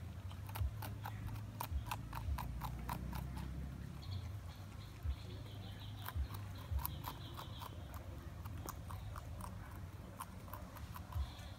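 A porcupine chewing crisp green leaves: runs of sharp, wet crunches, several a second, in three spells with short pauses between.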